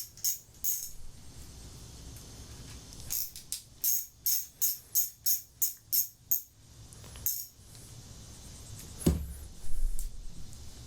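Background music: a tambourine-like shaker beat of about three hits a second, which stops and comes back, with a single low thump near the end.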